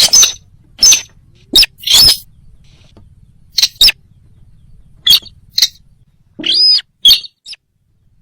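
Loud calls of the sintar bird played as a hunting lure: short, sharp, high chirps repeated at irregular intervals, with one longer arching call near the end.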